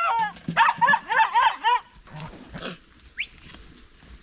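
Dog giving a quick run of about five short, high yelps in the first two seconds, then falling quiet.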